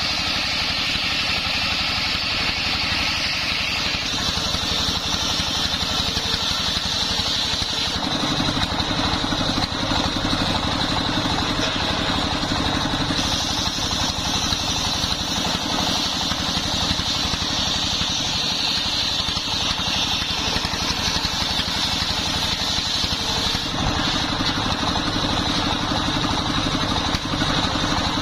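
Stationary single-cylinder diesel engine running steadily under load, belt-driving a homemade circular saw bench as its blade rips lengthwise through a sengon log. A high cutting whine from the blade in the wood is strong at the start, eases off for several seconds, then comes back strongly over the second half.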